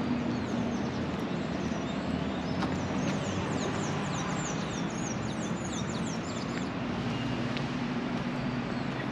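Street traffic with vehicle engines running steadily. A bird sings a rapid run of high, falling chirps for about four seconds in the middle.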